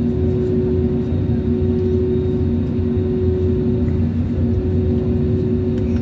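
Steady cabin noise inside an Airbus A320neo on the ground: a constant low rumble of the engines at idle and the air system, with a steady hum over it.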